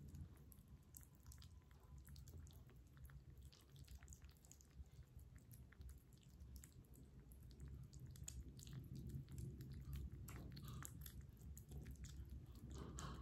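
Several kittens eating from small bowls: faint, irregular chewing and biting, a stream of small wet clicks, growing somewhat louder near the end.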